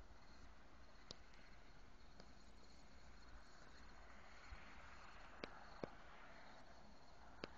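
Near silence outdoors: faint, steady high chirping of insects, with a few soft clicks.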